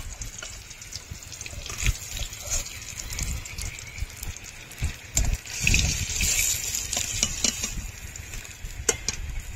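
Hot oil sizzling in a kadai, a steady hiss that swells for about a second midway, with a few sharp clicks and knocks of a utensil against the pan.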